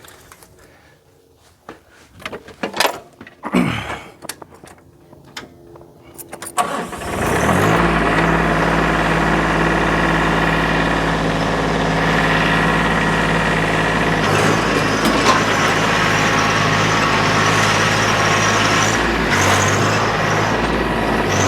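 A few knocks and clicks, then a small tractor's engine starts about seven seconds in and runs steadily, pulling harder from about fourteen seconds in as it hauls logs up a steep hill.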